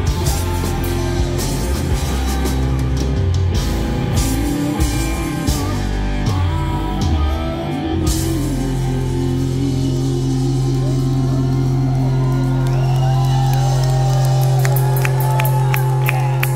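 Live rock band with electric guitar, bass and drums, a male voice singing over the first half. About halfway in the band settles into one long held chord, with wavering high notes over it and a quick run of drum and cymbal hits near the end as the song winds up.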